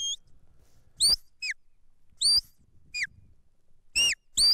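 A shepherd's whistle sounding a run of about seven short, sharp notes, some rising then dropping and some falling, with brief gaps between. These are the handler's whistle commands to a border collie fetching sheep.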